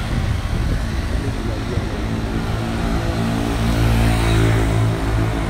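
A vehicle engine running steadily as it drives along a road, with road and wind noise. The engine grows louder about three to four seconds in.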